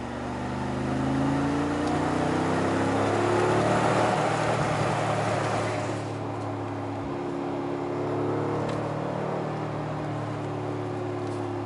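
Mercedes-AMG G63's twin-turbo V8 accelerating, heard from inside the cabin. The engine note rises and grows louder for about four seconds, eases off about six seconds in, then settles into a steady drone.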